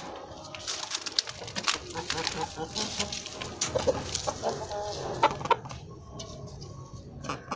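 Game-fowl roosters and hens clucking, with short calls and a run of sharp clicks mostly in the first five seconds, then quieter.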